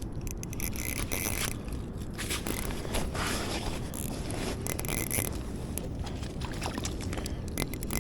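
Fishing reel running in several short, scratchy bursts over a steady low rumble.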